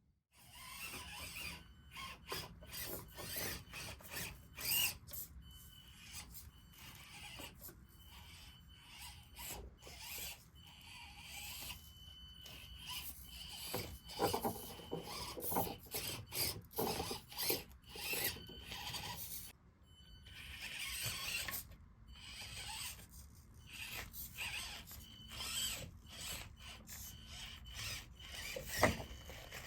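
A 1/24-scale Axial SCX24 Deadbolt RC crawler driving over sand and rocks: its small electric motor and gears whine in short, stop-and-start bursts, with its tyres scraping and rasping over the ground.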